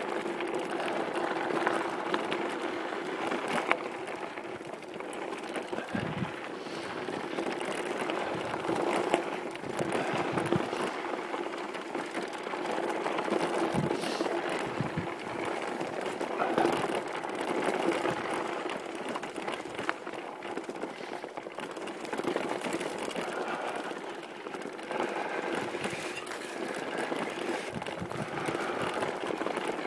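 Mountain bike riding fast down dirt and rocky singletrack: steady tyre and trail noise with frequent knocks and rattles over bumps. It is muffled and scratchy, heard through a phone microphone tucked inside a cycling jersey, with fabric rubbing against it.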